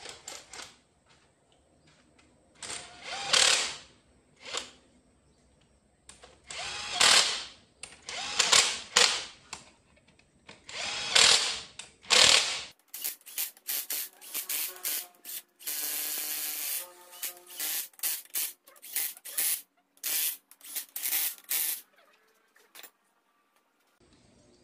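Pneumatic tool on a coiled air hose run in bursts: about five separate bursts roughly a second long in the first half, then a faster string of short bursts with a whine for about nine seconds, stopping near the end.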